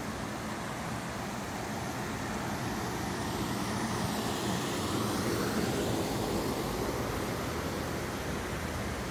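Steady rushing noise that swells a little in the middle and eases again, with no distinct events.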